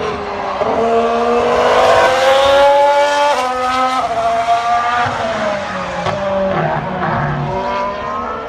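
Formula One car's V6 turbo engine accelerating hard out of a corner. The pitch climbs for a few seconds, then drops several times as the driver shifts up, and the sound fades as the car draws away.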